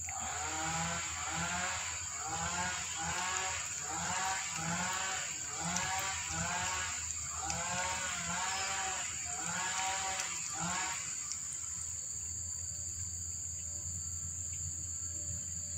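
An animal calling in a quick repeated series of short pitched calls, about two a second, that stops about eleven seconds in, over a steady high whine.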